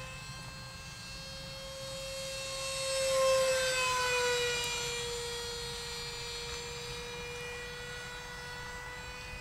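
Whine of an RC F-16's 50mm electric ducted fan in flight, a steady high-pitched tone with overtones. It grows louder about three seconds in as the jet passes close, the pitch drops a little as it goes by, and the whine then carries on steadily at a distance.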